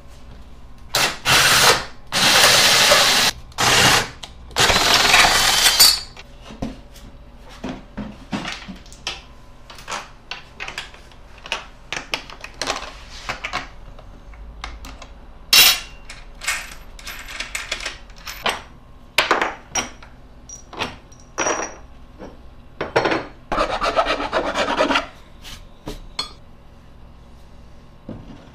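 Cordless drill boring into a wooden wheel centre in four bursts over the first few seconds, then scattered clicks, knocks and rubbing of tools on wood, with another two-second burst of noise near the end.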